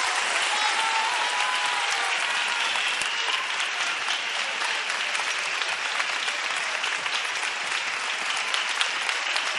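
A large studio audience applauding steadily, dense clapping right after the dance music has ended.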